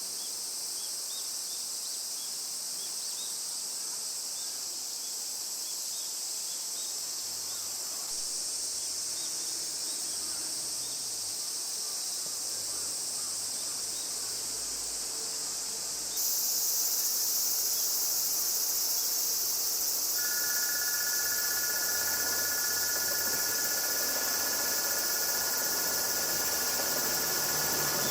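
A steady, high-pitched insect drone. It steps up in level about halfway through, and two steady higher tones join it about twenty seconds in.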